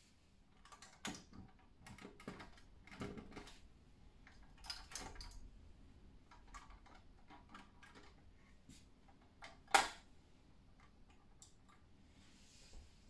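A scattered series of small clicks and taps from a BBurago 1:18 die-cast Range Rover Sport model being handled on a tabletop as its doors, bonnet and tailgate are opened by hand. The sharpest click comes about ten seconds in.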